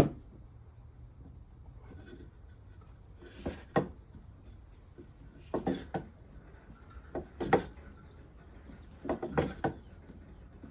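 Short wooden knocks and rubbing sounds, about five of them a second or two apart, from handling and rubbing the wood and cotton-and-ash fire roll.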